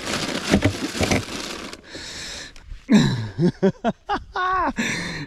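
A plastic bag of ice crinkling and ice crunching as it is moved about in a plastic cooler. About three seconds in come a few short wordless vocal sounds that slide in pitch.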